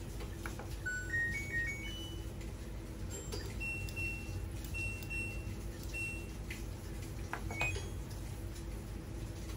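LG TROMM ThinQ washing machine control panel: the power button's short jingle of electronic beeps, then single higher beeps as the program dial is turned notch by notch. A few more beeps come near the end as the start button is pressed.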